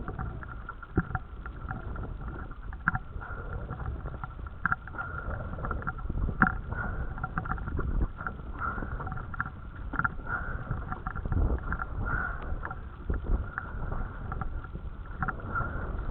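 Water lapping and slapping against a small dinghy's hull as it rocks at anchor, with irregular knocks and a steady low rumble of wind on the microphone.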